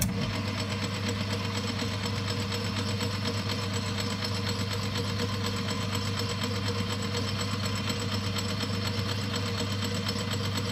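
Boxford metal lathe running at a steady speed, a continuous motor and gear hum, while a centre drill is fed by the tailstock handwheel into a stainless steel workpiece.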